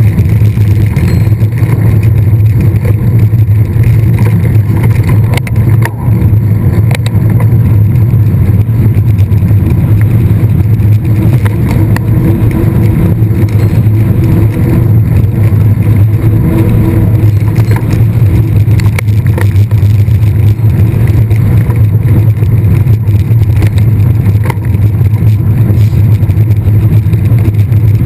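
Steady, loud riding noise from a mountain bike in motion, with wind and tyres rushing on the onboard camera's microphone and a few brief clicks from the bike over rough ground.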